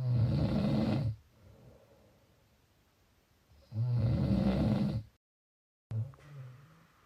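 Snoring: two loud, rough snores of about a second each, some three and a half seconds apart. After a brief dropout to total silence comes a fainter, shorter snore.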